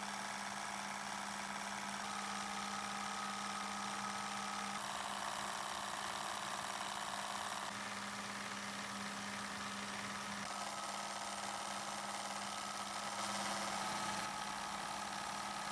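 A restored antique water pressure pump running steadily with an even machine hum.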